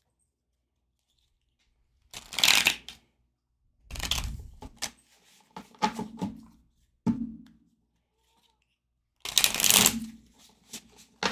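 A deck of oracle cards being shuffled by hand in several short bursts with pauses between them, ending in a riffle shuffle, a quick run of card clicks near the end.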